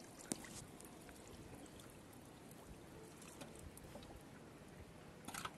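Faint trickling and sloshing of shallow water as a wading man lifts dripping weeds and a fish out of it. A sharp click comes about a third of a second in, and a short cluster of clicks near the end.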